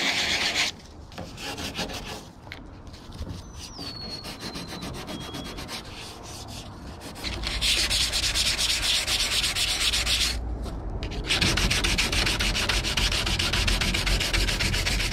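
Hand sanding of primed fibreglass with a sandpaper block: quick back-and-forth rasping strokes that knock down filler spots and roughness in the primer. The strokes are loud at first, lighter for several seconds, then loud again from about halfway, with a pause of about a second near the end.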